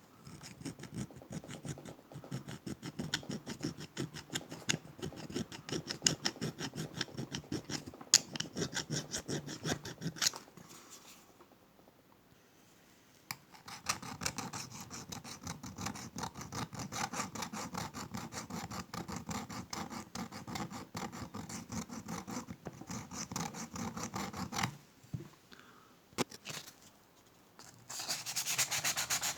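Steel jaws of long-nose pliers being worked with an abrasive, rapid rasping strokes in two long runs with a pause between them, then a brighter, hissier scraping near the end.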